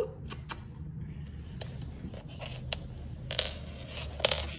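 Scattered light clicks and scrapes on a wooden floor as a Bedlington terrier is pulled out from under a sofa by its leash, with a few clicks close together near the end.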